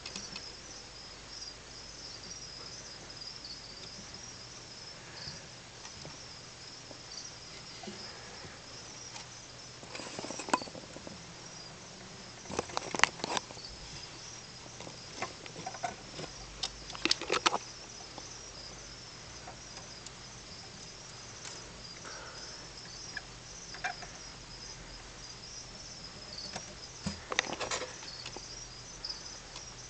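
Crickets chirping steadily in a high, fluttering trill, broken by several short bursts of rustling and clicking.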